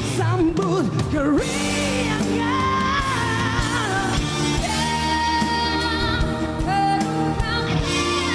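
Pop song performance: a singer holding long notes with vibrato over band accompaniment.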